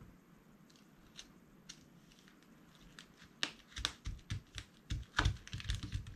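Hands pressing and rubbing a cardstock panel down onto a card base on a cutting mat. A few faint paper ticks come first, then from about three and a half seconds on a run of short thumps and paper rustles.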